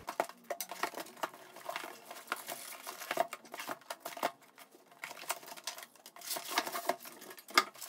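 Cardboard box being opened by hand: a box cutter running along the packing tape and the cardboard flaps scraped and pulled open, a string of irregular scrapes, rustles and sharp clicks.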